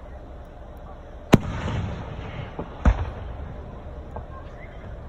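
Aerial firework shells bursting: two loud booms about a second and a half apart, each trailing off in a rumble, with a few fainter pops.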